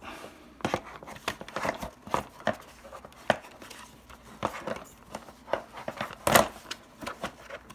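Handling sounds of a smarTrike tricycle's plastic front wheel being pushed and fitted into the folded frame: irregular knocks and clicks of plastic against the frame with fabric rustling. The loudest knock comes about six seconds in.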